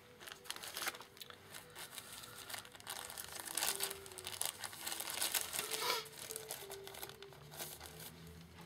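Clear plastic bag crinkling in irregular bursts as hands handle and fold it.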